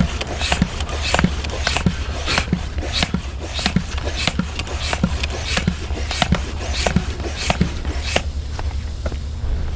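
Floor pump worked by hand, inflating the rear tyre of a cargo bike: a steady rhythm of pump strokes, about three every two seconds, each with a short rush of air. The strokes grow fainter near the end.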